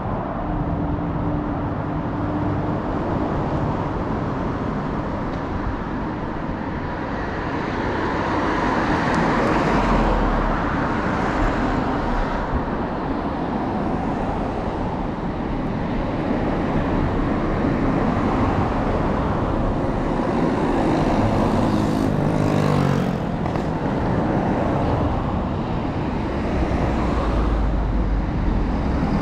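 Road traffic: a steady wash of cars and tyres on a road, with passing vehicles swelling louder about nine seconds in and again around twenty-two seconds in.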